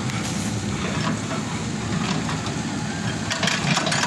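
Excavator running steadily, with a few short clanks a little over three seconds in.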